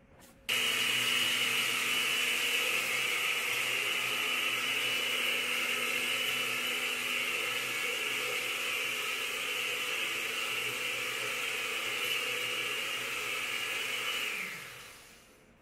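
Countertop blender puréeing fish heads with water: the motor starts suddenly about half a second in, runs steadily, then winds down with falling pitch near the end.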